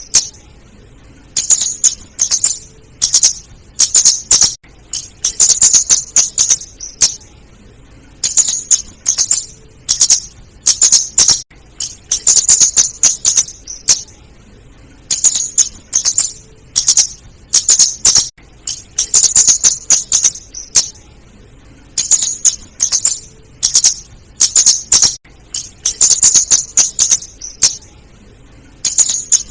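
Female flowerpecker (kemade or cabe-cabean) calling: short clusters of sharp, high ticking notes repeated every second or two, played in a steady loop as a lure call.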